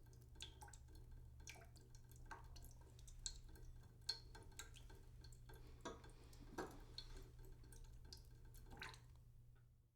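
Near silence broken by about ten faint, irregular light clicks and ticks, spaced from a fraction of a second to nearly two seconds apart.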